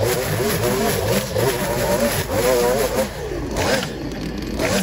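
Gas string trimmer running, its engine pitch wavering up and down as the line cuts through tall, dense weeds; it eases off about three seconds in.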